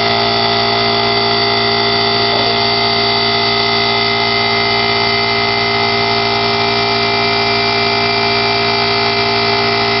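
Electric air compressor running steadily, with a constant motor-and-pump drone made of several fixed tones over a hiss.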